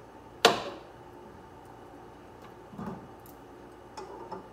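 Kitchenware clatter while serving grilled vegetables onto a dish: one sharp clink that rings briefly, then a duller knock a couple of seconds later and a few light clicks near the end.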